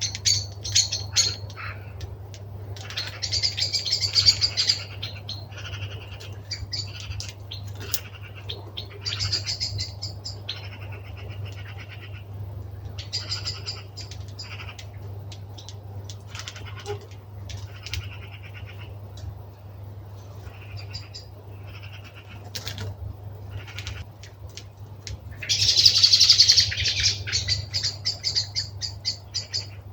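Birds settling into a winter roost in a hawthorn, among them blackbirds and redwings, give repeated sharp chattering calls in short bursts, with the loudest flurry about three-quarters of the way through. A steady low hum runs underneath.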